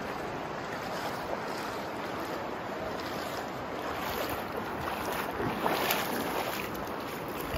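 Shallow river water rushing steadily over rocks, with splashes from a hiker's shoes wading through it in the second half.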